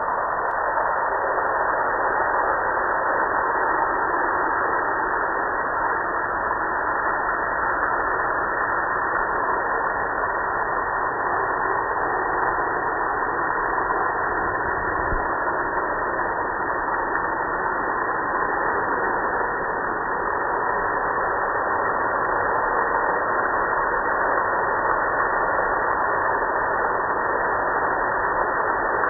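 A loud, steady machine noise that switches on abruptly and runs at an even level throughout, without changing pitch.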